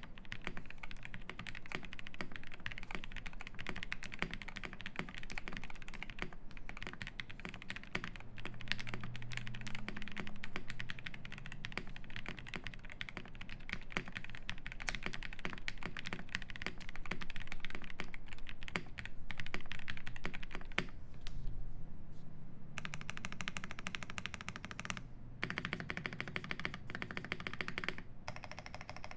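Typing on a Cyberboard R3 mechanical keyboard with lubed Cow (UHMWPE) switches, an FR4 plate and GMK keycaps: a dense, irregular run of keystrokes. Near the end come two spells of a fast, even rattle.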